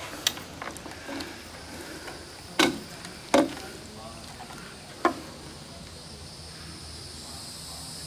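Four sharp knocks and clicks as a landing net and pliers are handled on a wooden dock, the loudest a little past the middle. Insects buzz steadily behind them, growing slightly louder near the end.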